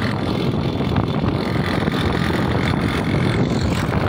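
Wooden donkey cart rolling quickly along a paved road: a steady rumble of the wheels with many small knocks and rattles from the cart, and wind buffeting the microphone.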